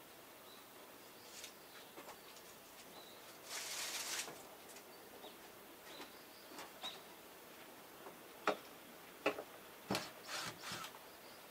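A person handling hanging items on a wooden porch wall. There is a brief rustle about three and a half seconds in, then a few sharp light clicks and knocks near the end, over a quiet outdoor background with faint bird chirps.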